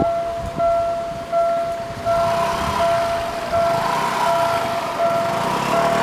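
Level-crossing warning bell dinging steadily, about one ding every three-quarters of a second, while the crossing is faulty with the barrier stuck down after the train has passed. A road vehicle's engine and tyre noise comes up from about two seconds in.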